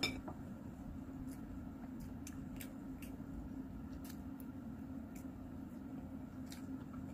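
A person eating quietly by hand: a sharp tap right at the start, then scattered faint clicks of chewing and of food being picked from plates, over a steady low hum.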